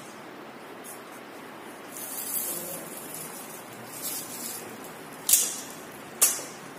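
Two sharp clicks about a second apart, over a steady hiss, with softer rustling before them.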